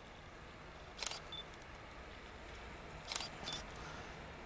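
A few faint, sharp clicks: one about a second in, then two close together around three seconds in, over a quiet steady background.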